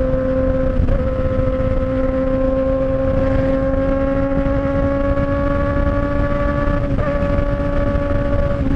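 Honda Hornet 600 inline-four motorcycle with a straight-piped four-into-one exhaust, running hard at steady high revs. Its note creeps slowly higher, with brief dips about a second in and near the end.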